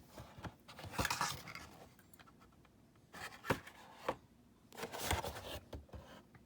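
Model kit packaging being handled: three short bursts of scraping and rustling, about a second in, past the three-second mark and around five seconds in.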